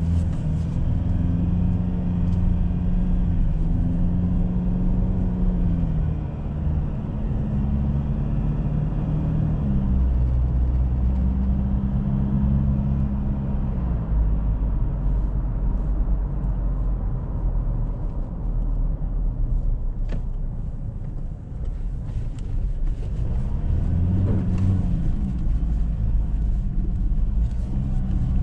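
Ford Ranger pickup driving, heard from the driver's seat: the engine runs under load over a steady tyre and road rumble. The engine note shifts in pitch several times, drops back around the middle, and rises and falls briefly near the end.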